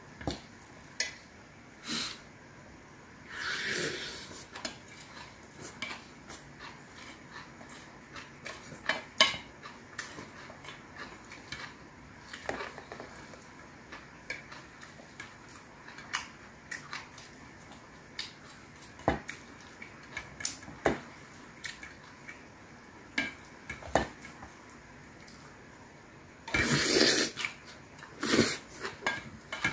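Wooden spoon and wooden chopsticks stirring and scraping bibimbap in a stainless steel bowl, with scattered clicks and knocks against the metal. Near the end come a couple of louder, longer noisy bursts.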